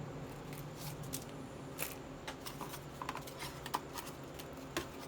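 Small metal multitool being handled: scattered light clicks and taps, about five sharp ones in a few seconds, over a steady low hum.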